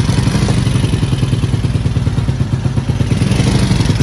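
A motorcycle engine idling steadily with an even, fast firing pulse, having just been started with a portable jump starter.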